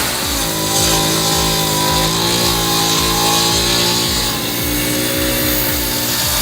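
A machine's engine running, its pitch shifting slightly, over background music with a steady beat.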